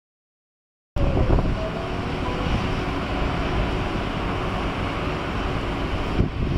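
Sound starts abruptly about a second in: a steady low rumble from the Boeing 747-8F's four GEnx jet engines on approach to land, mixed with wind buffeting the microphone.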